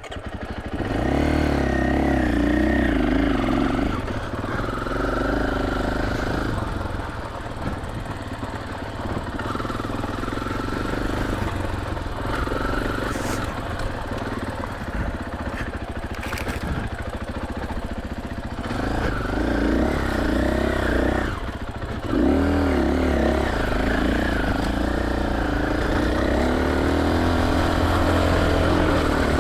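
KTM 500 EXC-F single-cylinder four-stroke dirt bike engine running under way, the revs rising and falling with the throttle and briefly dropping off a few times. It runs louder and steadier over the last third.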